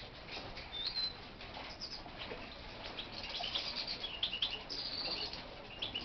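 Small finches in an aviary giving short, high chirping calls: a single call about a second in, then a busier run of quick chirps in the second half.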